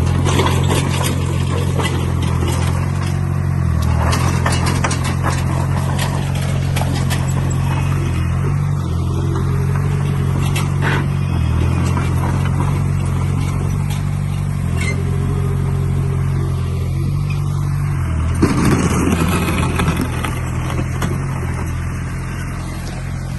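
Diesel engine of heavy earthmoving machinery running steadily, with scattered clanks and a brief louder surge near the end.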